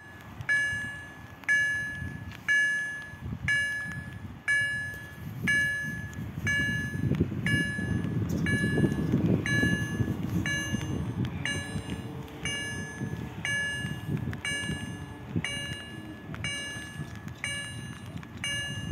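Level crossing warning bell ringing about once a second, each stroke a bright clang that dies away, signalling that the crossing is closing for a train as the barriers come down. A low rumbling noise swells in the middle and fades again.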